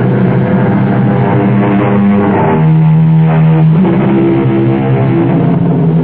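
Music: held low notes and chords that change pitch a few times.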